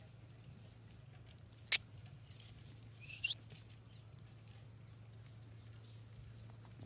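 A ring-necked parakeet gives a single short, rising chirp about three seconds in, a little after one sharp click. A steady low hum runs underneath.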